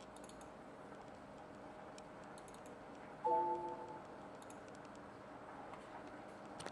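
A few faint clicks, then about three seconds in a short chime of several tones played by the computer as a Windows User Account Control prompt pops up. The chime fades out within about a second.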